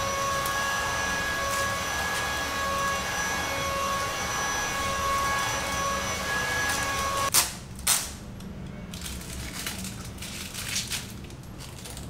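A motor runs with a steady whine over a hiss and stops abruptly about seven seconds in. Two sharp knocks follow, then lighter clicks and taps.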